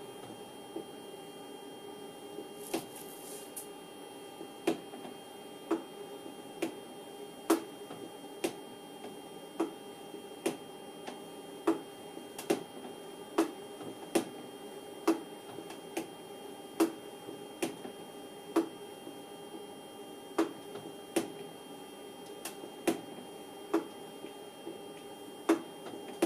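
Sharp mechanical clicks about once a second, unevenly spaced, over a steady electrical hum from altitude-encoder test equipment while the simulated altitude climbs.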